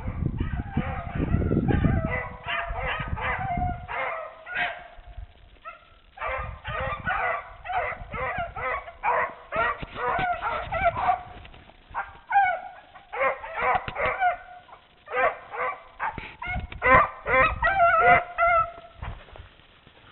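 Rabbit-hunting dogs baying in runs of quick, high yelps, a few a second, with short pauses between the runs: the dogs giving tongue as they work a rabbit's trail. A low rumble sits under the first two seconds.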